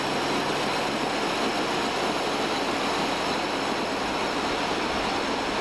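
Machine-hall noise of a running 1920 Voith water turbine and its generator: a steady, even rushing noise with a faint low hum, unchanging throughout.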